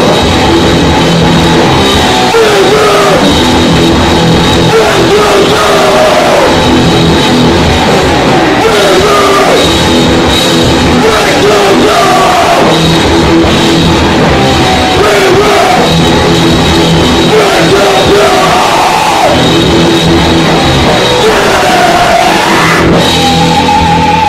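Live heavy rock band playing loud: vocals into a microphone over distorted electric guitars, bass and drums, with a single held note coming in near the end.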